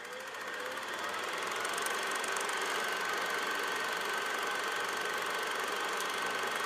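Logo intro sound effect: a steady, rapid mechanical whirring and clatter that fades in over the first second or so and holds steady, with a thin steady high tone over it.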